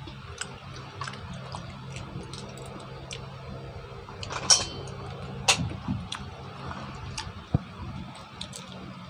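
Mussel shells clicking and clinking against each other and against a metal wok as they are picked out of the broth, with wet slurping and eating sounds; two louder clinks about four and a half and five and a half seconds in.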